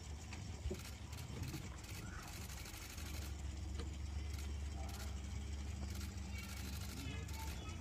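Steady low engine rumble, louder from about three seconds in, with a few faint chirping calls near the end.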